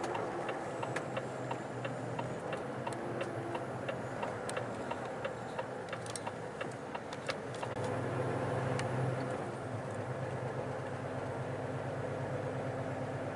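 Lorry's turn indicator ticking evenly, about three ticks a second, over the steady hum of the diesel engine heard inside the cab. The ticking stops about seven seconds in, and the engine then picks up as the truck pulls away.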